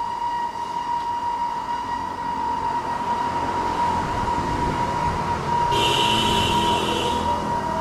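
Stone crusher running: a steady high whine over a rumbling, grinding machine noise, with a harsher rattling burst about six seconds in.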